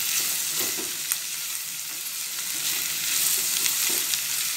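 Chopped shallots, green chillies and curry leaves sizzling in hot oil in a stainless steel pan, stirred with a wooden spatula that now and then knocks or scrapes against the pan with a sharp click.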